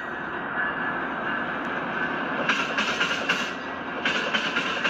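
LEGO trains rolling along plastic track with a steady whirr. Clusters of quick clicks come about two and a half and four seconds in, as the wheels pass over the track joints.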